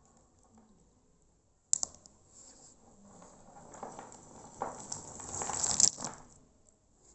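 Dried, split areca nuts clattering and rustling against each other as the heap is shifted. A sharp click comes a little under 2 s in, then the rattling builds, is loudest just before 6 s and stops suddenly.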